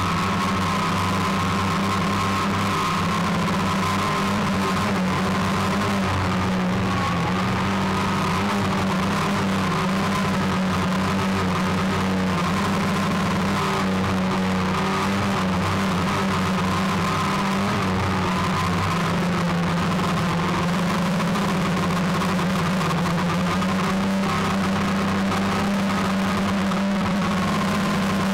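Steady whine of a small drone's electric motors and propellers, picked up by the camera riding on it, its pitch wavering slightly.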